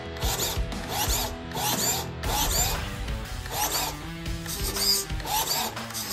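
Short whirring bursts that repeat every half second to a second, from the Redcat Monte Carlo RC lowrider's suspension servos working, over background music.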